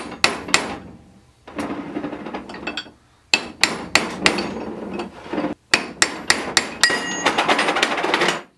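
A ball-peen hammer strikes a brass hammer held as a drift, knocking the ring gear off a Ford 9-inch differential carrier. Sharp metal-on-metal taps come in groups, then a fast run of taps with some ringing in the last second and a half.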